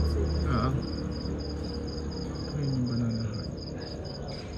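An insect chirping in a steady rapid series of short high-pitched pulses, about six a second. A low rumble fades out about a second in, and faint voices murmur in the background.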